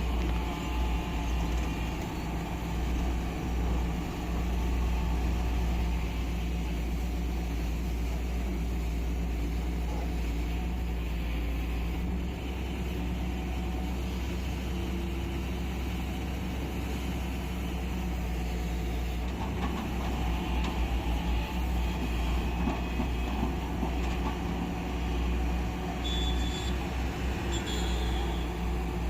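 Diesel engine of a heavy earthmoving machine running steadily under work, with a few short high-pitched squeaks near the end.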